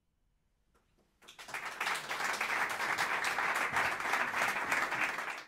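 Audience applauding. After about a second of quiet the clapping starts and swells quickly to a steady level.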